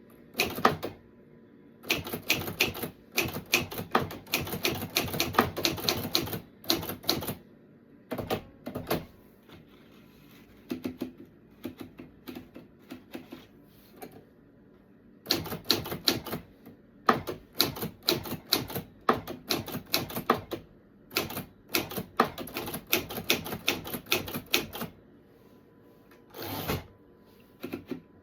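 Typewriter being typed on after its repair, the keys striking in quick runs of sharp clicks with pauses between. Near the end comes one longer, noisier sound.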